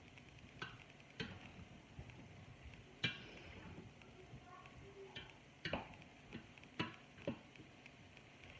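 A spatula knocking and scraping against the sides of a stainless steel pot while diced peppers, onions and minced beef are stirred: several sharp knocks at irregular spacing, the loudest about three seconds in.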